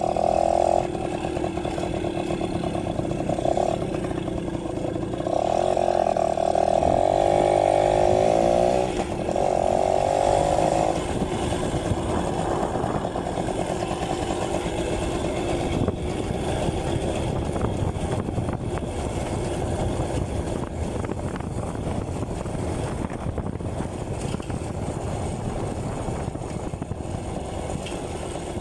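A Yamaha V50's small two-stroke engine runs under way. It revs hard in several spurts during the first ten seconds or so, then runs more evenly and slowly grows quieter.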